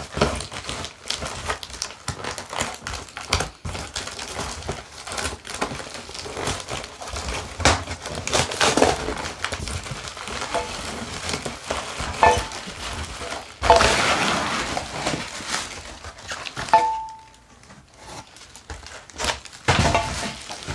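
Cardboard box being slit open with a pocket knife and its flaps pulled and handled, a run of rustling, scraping and knocks. Near the end, plastic wrapping crinkles as a wrapped part is lifted out.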